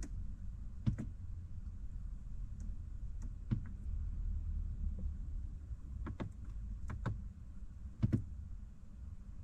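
Scattered single clicks of buttons being pressed on a BMW's iDrive controller and dash controls, about eight spread over several seconds, over a steady low cabin hum.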